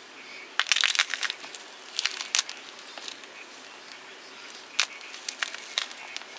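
Block of gym chalk being crushed, crumbling with clusters of sharp crunches in about four bursts.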